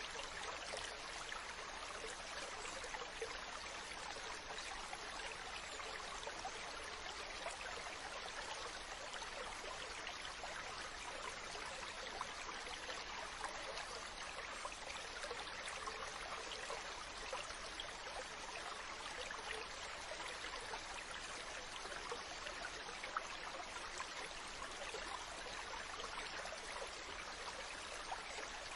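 Mountain stream running over rocks: a steady rush and babble of water with small splashes throughout.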